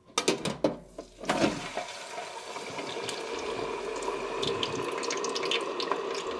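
Cut potato fries coated in sugar water going into hot melted vegetable shortening in a deep fryer: a few clatters, then from about a second in a steady sizzle with scattered crackles. The sizzle is the water on the fries boiling off in the hot fat.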